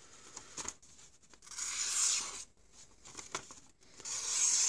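Sanrenmu 6020 folding knife's stainless steel blade slicing through a hand-held sheet of paper in two long strokes, the first about a second and a half in and the second near the end, with light paper rustles between. The blade cuts cleanly: it is sharp.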